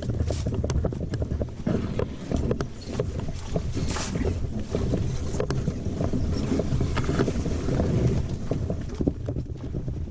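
Wind buffeting the microphone in a steady low rumble, with frequent small splashes and knocks of water against a canoe being paddled into the wind.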